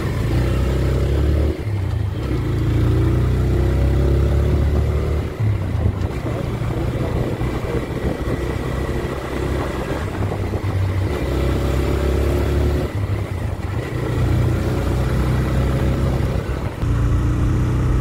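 A TVS Raider 125's single-cylinder engine pulling the motorcycle along the road. Its pitch rises as it accelerates and drops back several times, with brief dips in loudness about five seconds in and near the end.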